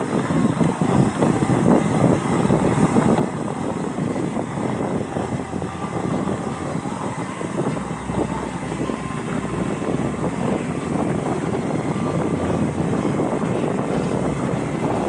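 Mountain bike riding down dirt single track: tyres crunching and the bike rattling over the trail, mixed with wind rumble on the microphone. It is louder and rougher for the first three seconds, then settles to a steadier, slightly quieter run.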